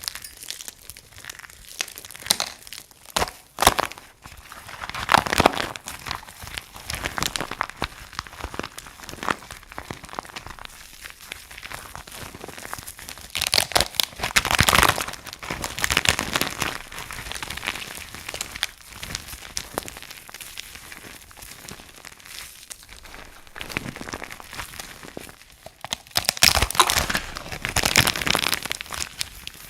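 Dry soap crunching and crumbling, a run of crisp crackles that swells into louder bursts about five seconds in, around fourteen seconds and again near the end.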